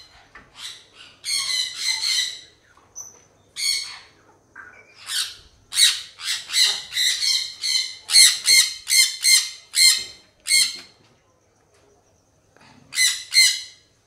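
Monk parakeet giving loud, harsh squawks over and over in runs while it is held and its wounded foot is treated: distress calls at being handled.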